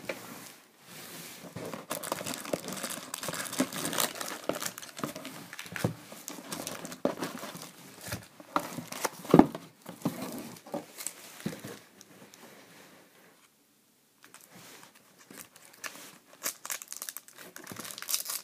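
Foil trading-card packs and their cardboard box being handled, with crinkling and tearing of the wrappers. There is a sharp knock about nine seconds in, then a brief pause before the crinkling starts again.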